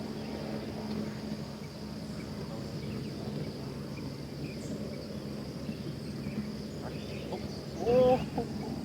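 Steady high shrilling of an insect chorus over a low, steady hum. A little before the end comes a brief, louder voice-like sound.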